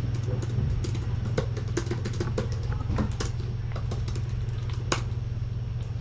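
Irregular light clicks of typing on a laptop keyboard, a few to several a second, over a steady low hum.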